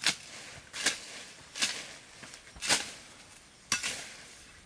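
Long-handled tool chopping down into tall weeds and brush: five sharp, swishing strokes, about one a second.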